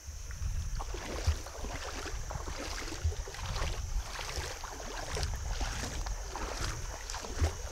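River water sloshing and splashing in uneven strokes, about one to two a second.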